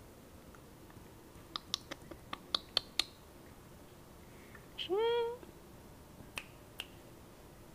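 Cat crunching dry kibble in a quick run of sharp clicks, then one short meow that rises in pitch about five seconds in, with a few more single crunches after it.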